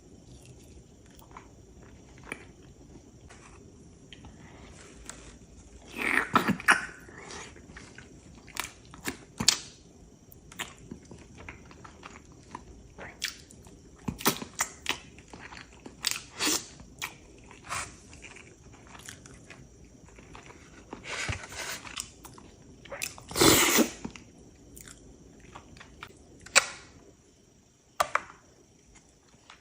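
Close-miked eating sounds: wet chewing and biting with scattered crunches. A few louder bites stand out, the loudest about 23 seconds in.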